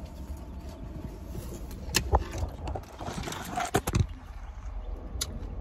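Low, steady rumble of a car, with several sharp clicks and knocks about two seconds in, around four seconds in and once more near the end.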